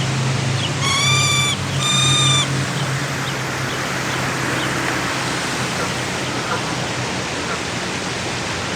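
Steady rushing of water, with two short, flat-pitched bird calls about a second and two seconds in, and a low hum that fades out after about three seconds.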